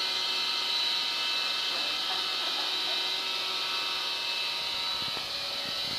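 A robot vacuum cleaner running: a steady motor hum and whine, with a few faint knocks near the end.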